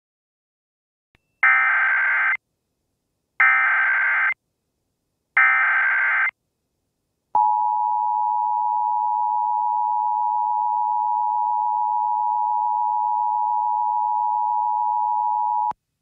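Emergency Alert System alert header: three bursts of SAME digital data tones, each about a second long and a second apart, then the steady two-tone EAS attention signal held for about eight seconds. Together they mark the start of an emergency alert broadcast.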